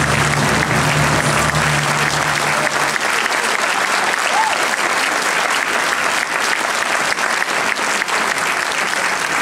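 Audience and seated honorees applauding steadily, with a low held tone underneath that stops about three seconds in.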